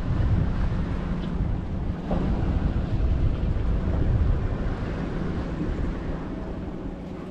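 Wind buffeting the microphone as a low, gusty rumble, over the wash of water around a small boat; the rumble eases off toward the end.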